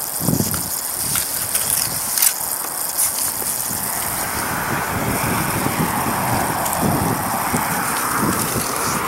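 Wind rumbling on the microphone, with a rushing noise that swells over the second half and a couple of sharp clicks, about two and three seconds in.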